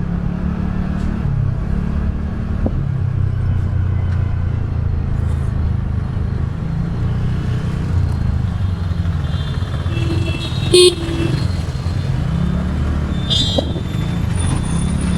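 Single-cylinder engine of a TVS Ntorq 125 scooter running as it rides slowly through busy street traffic, with its pitch shifting as the throttle changes. Vehicle horns honk briefly twice in the second half.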